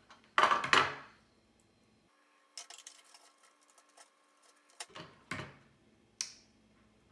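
Handling noise as a potentiometer and its wires are fitted into a 3D-printed plastic case: a loud knock and rustle near the start, a run of small light clicks in the middle, then a few knocks and a sharp click near the end.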